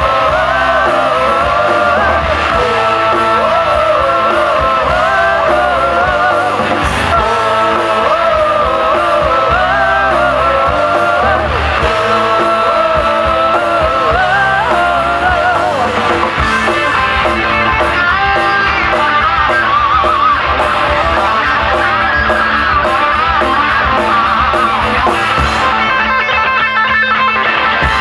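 Live rock band playing loud, with electric guitars and drums under a sung vocal line; near the end the high end drops away and a sustained guitar note carries on.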